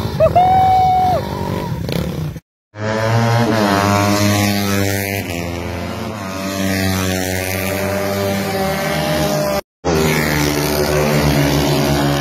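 Racing motorcycle engines running at high revs, rising in pitch as they accelerate, in short clips cut together. The sound drops out abruptly about two and a half seconds in and again near ten seconds.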